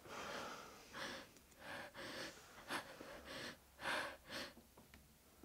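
A person breathing unsteadily in short, audible breaths and gasps, about six in a row, dying away near the end.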